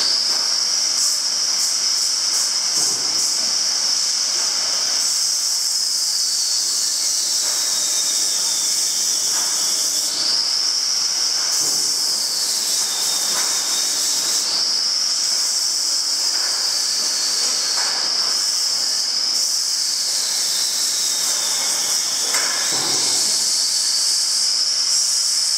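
Welding robot's servo drives whining as the arm moves through its program without welding: a steady high whine that dips in pitch and comes back up several times as the arm slows and speeds up, over a constant hiss.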